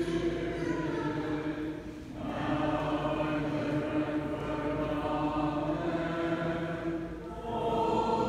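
A group of voices singing Byzantine Catholic liturgical chant in long held notes, with brief breaks between phrases about two seconds in and again near the end.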